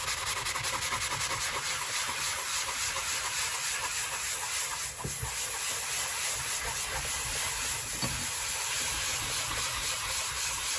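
The rough side of a fine-grit sanding sponge rubbed in rapid back-and-forth strokes over a Creality Ender 3 glass print bed: a steady scratchy hiss. The glass surface is being roughened for better print adhesion.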